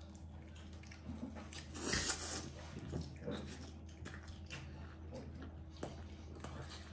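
Quiet mouth sounds of people eating homemade pizza: chewing and biting, with faint clicks and one louder noisy swell about two seconds in.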